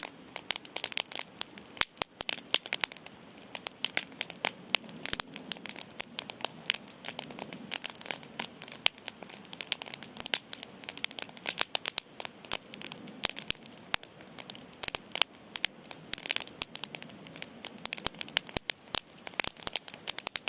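Cedar campfire crackling, with dense irregular snaps and pops over a steady hiss.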